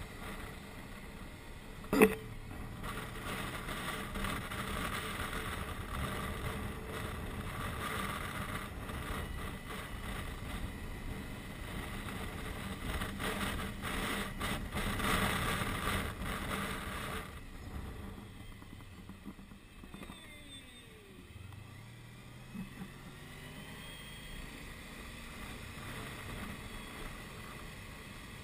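Wind buffeting a helmet-mounted camera microphone on a motorcycle at speed, with the engine running underneath, and a single sharp knock about two seconds in. After about seventeen seconds the wind drops away as the bike slows, leaving the quieter engine, whose note glides in pitch.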